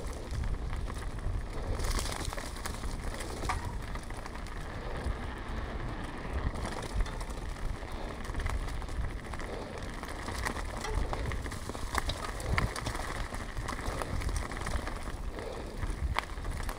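Mountain bike rolling downhill: tyres on a rough surface and the bike rattling, with scattered sharp clicks and knocks over a steady low rumble of wind on the microphone.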